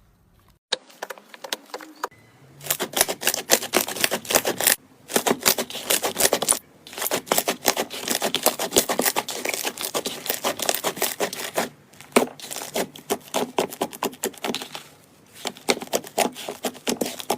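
Slime being squeezed and worked by hand, a dense run of rapid clicks and crackles that stops briefly a few times.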